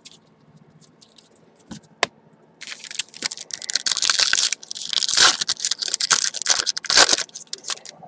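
A trading card pack's wrapper being torn open and crinkled by gloved hands. After a couple of small clicks, a loud crackling tear starts about two and a half seconds in and runs for about five seconds.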